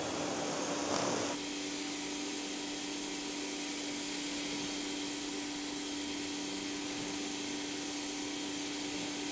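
ProFlow PM2000 electric pressure washer running with a steady motor hum, its water jet hissing on a car's hood as it rinses off soap residue. The spray hiss gets louder about a second in.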